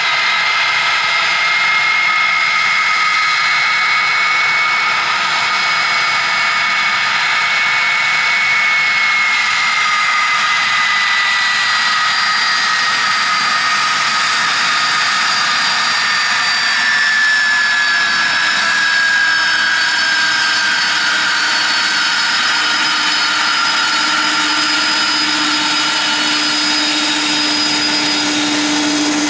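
Boeing 767-300ER's twin turbofan engines running at low power as the airliner taxis and lines up on the runway: a steady jet whine that slowly falls in pitch over the middle, with a lower hum growing louder near the end.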